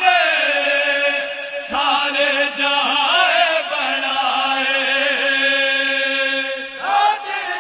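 A group of men chanting a devotional poem (naat-style kalaam) in unison without instruments, drawing out long held notes that waver and slide between pitches, with a change in the melody near the end.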